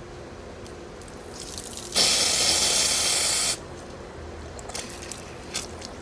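Pressure being released from pool return plumbing through a pressure-test rig's valve: a loud spraying hiss about two seconds in that lasts about a second and a half and cuts off sharply, venting the 10 PSI held in the return lines.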